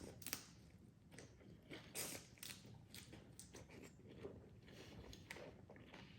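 Faint chewing and crunching of a mouthful of spicy salmon and vegetable salad, with short crisp crunches every second or so, the loudest about two seconds in.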